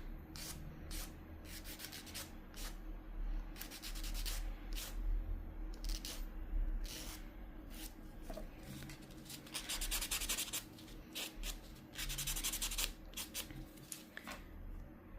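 Nail file scraping back and forth across a fingernail in short strokes, with a few runs of quicker strokes and short pauses between.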